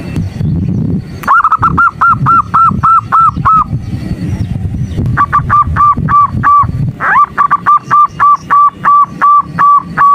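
Zebra dove (perkutut) calling in three rapid runs of short cooing notes, about four a second, over a low rumble. It is the female's call, used as a lure to rouse male perkutut into calling.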